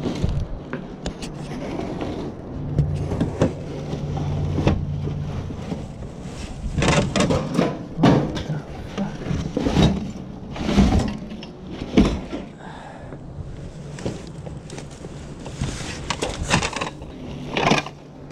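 Household goods being handled and moved while sorting through boxes: irregular knocks, thumps and rustling, busiest in the middle and again near the end, over a low steady hum.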